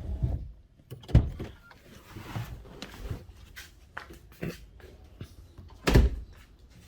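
A few dull thumps and knocks, the loudest about six seconds in, with no engine running.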